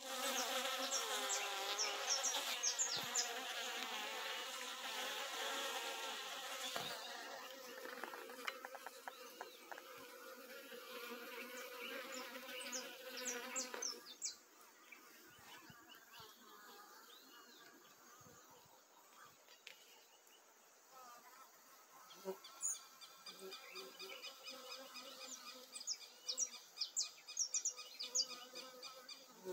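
Bees buzzing in flight around the entrance of a limão (Lestrimelitta) robber-bee nest, where honeybees and mandaçaia bees are robbing it: a steady, pitched hum, loud for about the first half, then fainter, with single buzzes passing close near the end.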